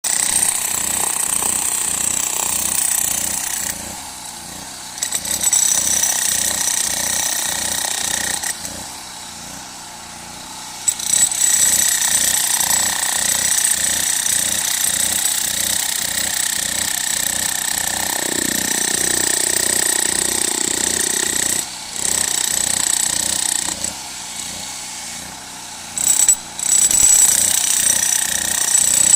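Bosch electric jackhammer breaking hard wadas rock: a rapid, even hammering of the chisel bit that stops and restarts several times as the operator pauses.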